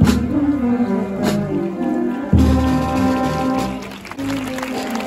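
Processional marching band of brass and drums playing, brass holding sustained chords over bass drum and snare drum strikes.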